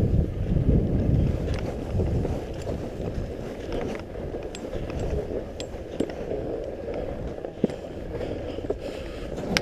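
Wind buffeting the microphone of a skier's action camera, easing off over the first couple of seconds as the skier slows, then skis sliding and scraping over packed snow with scattered light clicks.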